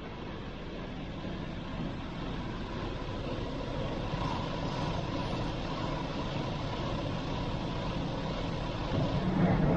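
A vehicle on the move: steady engine and road noise that grows slightly louder, with a heavier low hum near the end.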